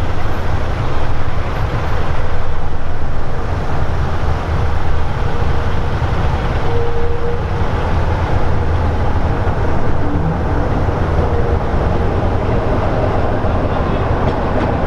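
Class 44 'Peak' diesel locomotive D8 Penyghent approaching, its Sulzer twelve-cylinder diesel engine giving a steady low rumble.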